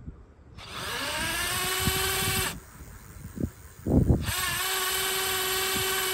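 Cordless-drill motor of a drill-powered electric bike conversion whining as it spins the lifted rear wheel, in two runs. Each run rises in pitch as it winds up to speed, holds steady for about two seconds, then cuts off. A short low thump falls between the runs.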